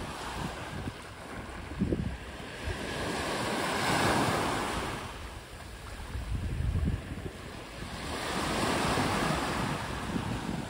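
Small sea waves breaking and washing up a pebble-strewn sand beach, the surf swelling twice, about a third of the way in and again near the end. Wind buffets the microphone now and then in low rumbles.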